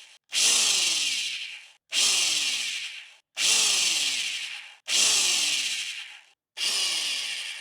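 Power drill run in short trigger bursts: five bursts about a second and a half apart, each starting abruptly and dying away with the motor's pitch falling as it winds down.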